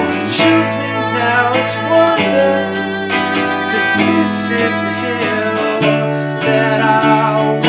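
A band's song from a living-room recording playing, in a stretch with no sung words.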